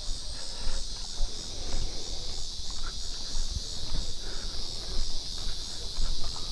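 Steady high-pitched chorus of insects, with irregular low rumbling and an occasional light knock beneath it.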